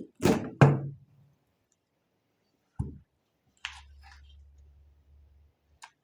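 Two loud knocks about a third of a second apart, then a softer thud about three seconds in, and some faint rustling and clattering.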